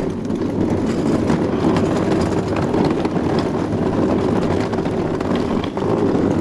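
Steady low rumbling noise with faint scattered ticks, like a vehicle running.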